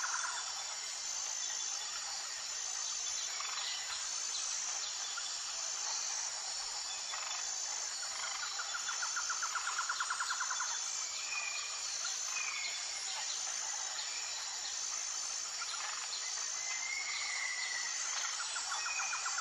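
Natural outdoor ambience: a steady high insect drone with regular pulses, a rapid chirring trill about halfway through, and short whistled bird calls every few seconds.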